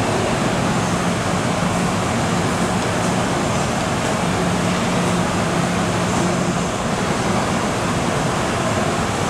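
Steady hum and hiss of a stationary MTR M-Train standing at an underground platform, its onboard equipment running, with a low hum that drops out and returns now and then.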